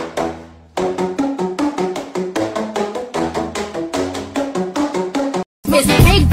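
Background music: a quick, bouncy run of short percussive notes over a low bass line. About five and a half seconds in it stops abruptly and a louder, busier track starts.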